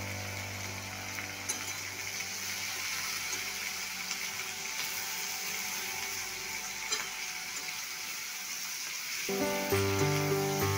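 Food sizzling steadily as it fries in oil in a pan, with a few faint clicks. Background music fades early on and a new melody comes in about nine seconds in.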